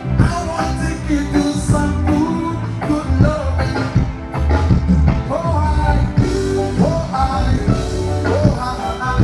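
Reggae music playing: a heavy, pulsing bass line under a melody.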